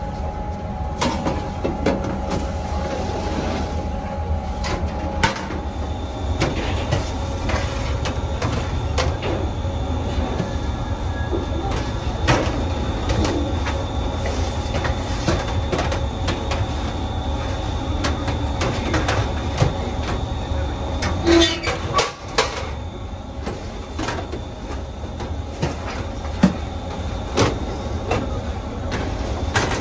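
Steady low hum of bakery machinery, with scattered clinks, knocks and scrapes of metal baking trays being slid in and out of a deck oven.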